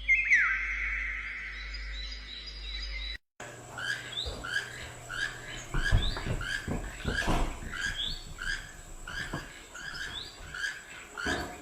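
A bird calling in a steady series of short, repeated chirps, about two a second, with a few soft knocks among them. Before this, after an abrupt cut about three seconds in, there is a clear whistled note that falls in pitch.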